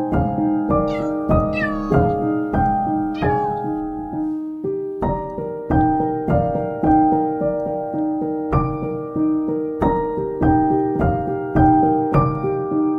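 Background piano music with evenly struck notes, and three short, high kitten mews falling in pitch between about one and three and a half seconds in.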